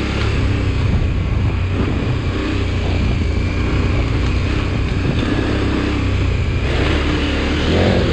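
Motorcycle engine running steadily on a dirt trail, with wind on the microphone; the sound grows rougher and noisier about seven seconds in.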